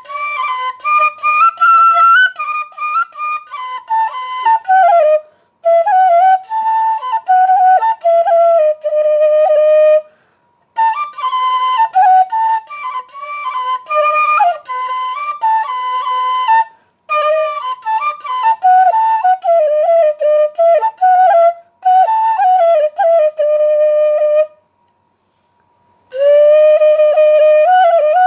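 Solo flute playing an ornamented melody in phrases, breaking off for short pauses between them.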